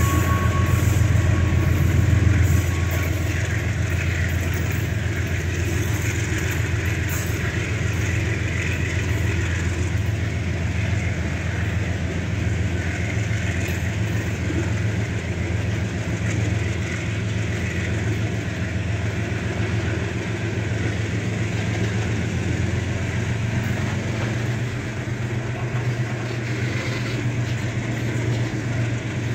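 Loaded freight hopper wagons rolling slowly past, steel wheels rumbling on the rails with scattered clanks in the first several seconds, over a steady low drone of the two GE U20C diesel locomotives pulling hard ahead on a grade. A thin high squeal from the wheels sounds for the first couple of seconds.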